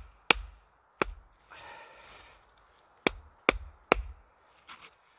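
Sharp blows on wood, chopping or knocking: two single strikes, then three in quick succession a little after three seconds in, with a brief scraping rustle between them and two fainter knocks near the end.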